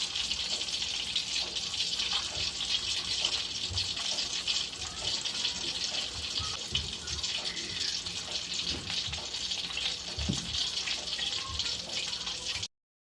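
Milkfish (bangus) frying in hot oil: a steady sizzle with scattered pops and crackles, cutting off abruptly near the end.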